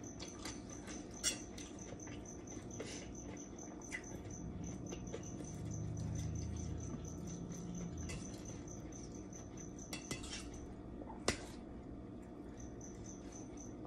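Spoon and fork clicking and scraping against a plate of rice, with scattered sharp clicks and the loudest knock about 11 seconds in, under a faint steady high whine.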